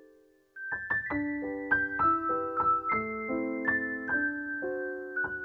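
Background piano or electric-piano music: a held chord fades out, then after a brief pause a new phrase of plucked-sounding notes starts, each note struck about every quarter to half second and left to ring.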